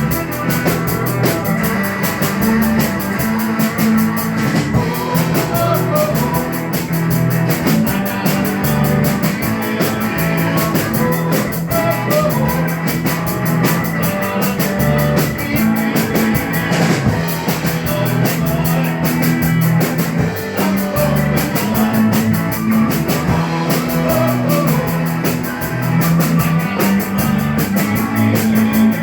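A rock band playing with drum kit, electric guitars, bass guitar and keyboards, the drums keeping a steady driving beat under a moving bass line.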